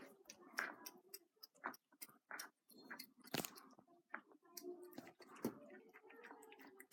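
Cats chewing food, a faint run of irregular crunches and bites. Faint low mewing comes from one cat as it eats, mostly in the second half.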